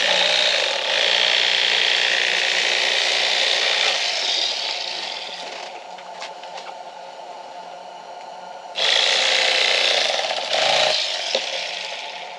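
Battery electric fillet knife running with its blades sawing through crappie while filleting. It runs as a steady buzz for about four seconds, eases off, then runs hard again for about two seconds near the end.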